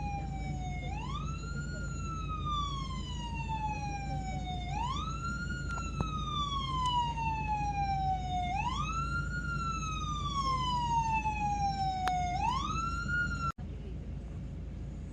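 A vehicle siren wailing, each cycle rising quickly and then falling slowly, about one cycle every four seconds, over the steady low rumble of engines in a traffic jam. The siren cuts off abruptly near the end, leaving only the engine rumble.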